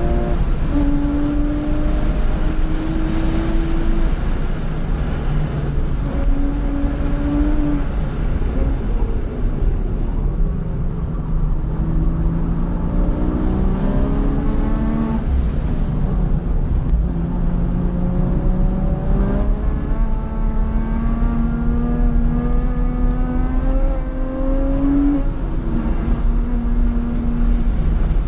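Porsche 911 Carrera 2 (997) flat-six engine under hard track driving, heard from inside the cabin. Its note climbs and steps down with the gear changes, falls away under braking about ten seconds in, then climbs again as the car accelerates out. Road and wind noise run steadily underneath.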